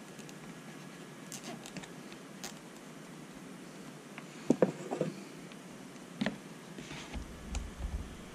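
Scattered light clicks and taps of hands handling wires and small plastic parts inside an RC crawler chassis, with a cluster of louder clicks about halfway through and a few dull thumps near the end.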